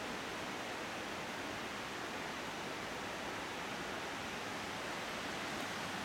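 Steady, even rushing of a waterfall's falling water, with no rise or fall in level.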